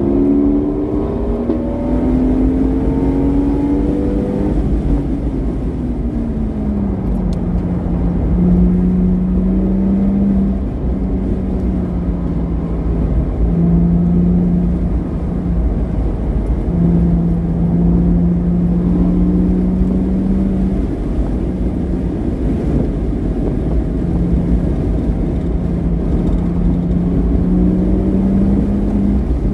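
Porsche Boxster S flat-six through a modified exhaust, driven on track. The revs climb for the first few seconds and fall about five to seven seconds in, then the engine holds a steady drone that breaks off and returns several times before climbing again near the end, over a heavy low rumble.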